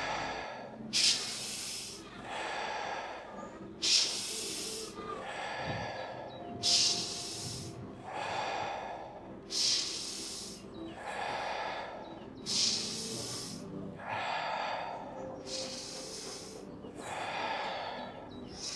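A person breathing deeply and rhythmically through the nose in a paced breathing exercise, about one full breath every three seconds. Each cycle pairs a sharp, hissing breath that starts suddenly with a softer one.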